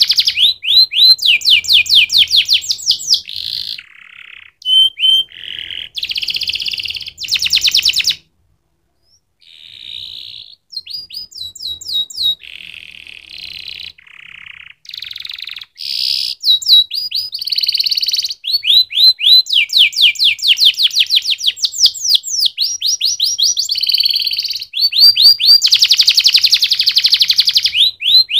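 Domestic canary singing: fast trilled phrases of rapidly repeated notes, one run after another, with a pause of about a second roughly eight seconds in.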